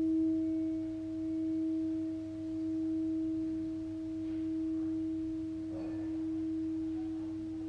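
Tibetan singing bowl ringing with a steady, held low tone and a fainter overtone above it, its loudness slowly swelling and fading.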